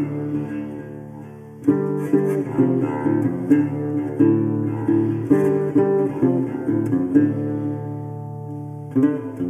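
Background music led by a plucked guitar, picking a steady run of notes. It dips briefly near the start, comes back in about a second and a half in, and rings out into a fading chord near the end before starting again.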